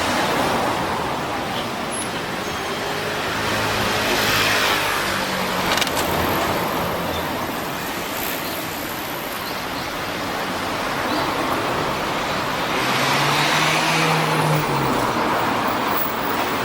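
Road traffic: cars passing by in a steady wash of tyre and engine noise, with two louder passes, one about four seconds in and another near the end.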